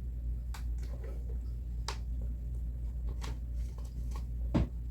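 A few faint, short clicks and knocks at irregular intervals over a steady low hum, with a slightly louder knock near the end.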